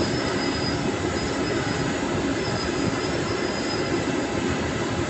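Jet airliner's engines running at taxi power: a steady roar with a faint high whine that fades in and out twice.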